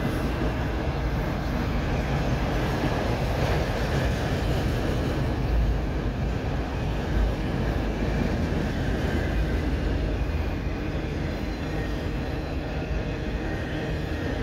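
CSX autorack freight cars rolling past on the track: a steady rumble of steel wheels on rail.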